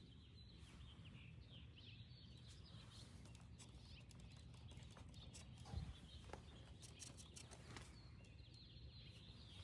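Near silence: faint steady background hum, with one soft knock about six seconds in.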